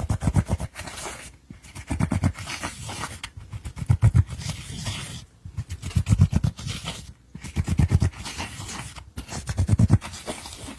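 Galaxy glitter slime being squished and kneaded by hand, with sticky clicking and popping of trapped air in bursts about every two seconds.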